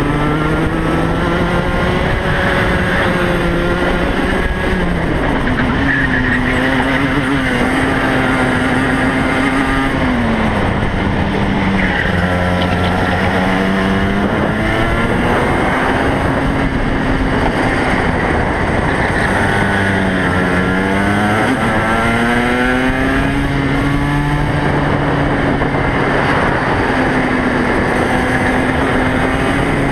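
Racing kart's two-stroke engine at full throttle, its pitch climbing along the straights and dropping sharply three times as the kart slows for corners, then rising again on each exit.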